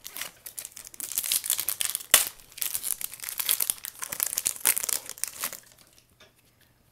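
Foil wrapper of a 2007 Upper Deck Artifacts baseball card pack being torn open and crinkled by hand, with a sharp snap about two seconds in. The crinkling stops near the end.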